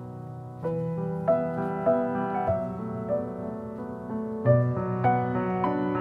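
Background piano music: a gentle melody of single notes over held chords, growing fuller about half a second in.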